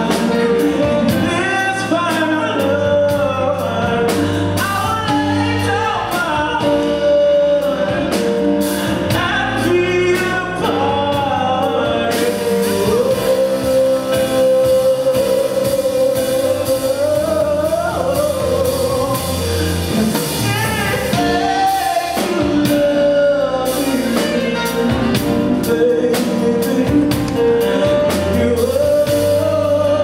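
Live small jazz ensemble playing a ballad arrangement: a gliding lead melody over drums, hand percussion, bass guitar and keyboard.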